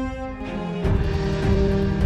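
Logo theme music: held chords that thin out, then a fuller chord with deep bass coming in just under a second in.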